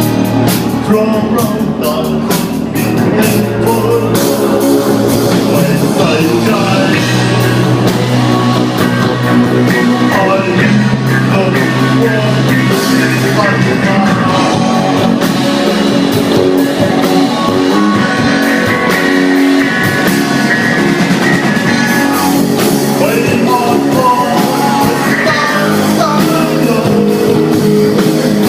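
Rock band playing live: electric guitar and drum kit with a sung lead vocal, loud and steady throughout.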